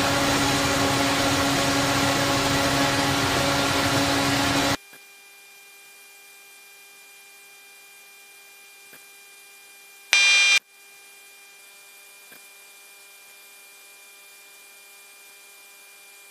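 Loud steady rushing noise with a low hum inside a KC-135 Stratotanker cockpit, cutting off abruptly about five seconds in to a faint steady electrical hum. About ten seconds in, a loud high beep sounds once for half a second.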